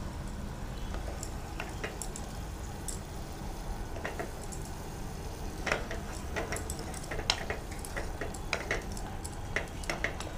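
A spatula stirring thick tomato-and-corn masala gravy in a non-stick pot, with soft squelching and scattered light clicks and scrapes against the pot, over a steady low hum.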